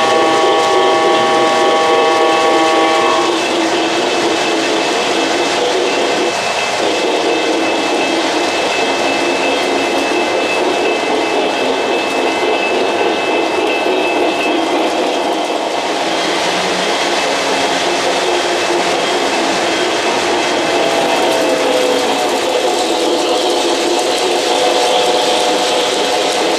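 O-gauge model trains rolling on three-rail track, a continuous running noise of wheels and motors. A locomotive's onboard sound system sounds a sustained chord for the first three seconds and again for the last five or so.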